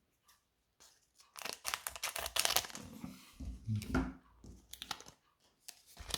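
A foil Pokémon card booster pack being torn open and its wrapper crinkled, in several crackly rips and rustles after a brief pause, with a dull handling thud midway.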